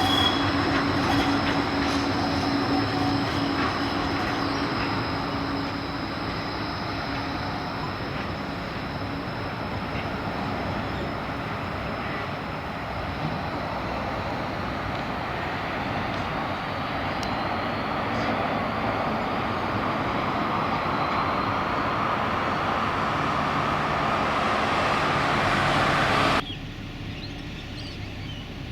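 Gold Coast Light Rail tram running on its rails, a rushing rolling noise with a steady high whine at first. It eases, builds again, then cuts off suddenly near the end.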